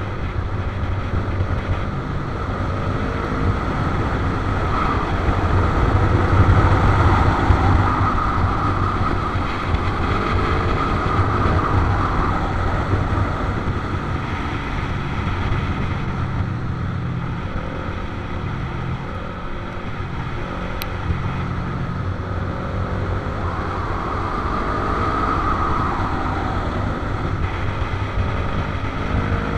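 Motorcycle engines running while riding through bends, heavily mixed with wind rush on the microphone. The engine note rises and falls with the throttle, loudest about a quarter of the way in.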